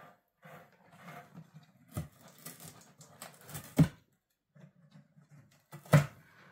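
Cats moving in and against a cardboard box: scuffing and rustling on the cardboard as one cat turns inside it and another paws at its edge, with sharp knocks about two seconds and four seconds in and a louder one about six seconds in.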